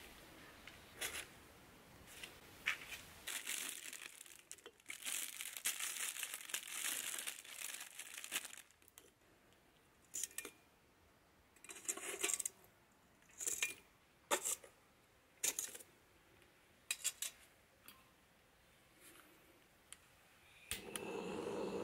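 Handling sounds of lighting a clay shichirin: a few knocks, then several seconds of packaging crinkling and tearing, then separate sharp clinks as lumps of leftover charcoal are placed in with metal tongs. Near the end a cartridge gas torch lights with a steady rushing flame.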